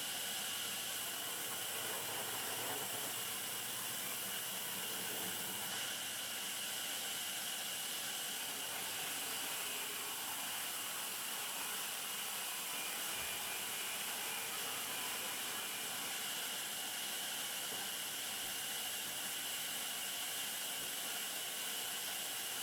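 Steady, unchanging hiss of sawmill machinery running, with a constant high whine above it.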